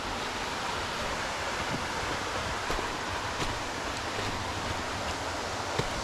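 Steady rush of flowing water, with a few faint knocks.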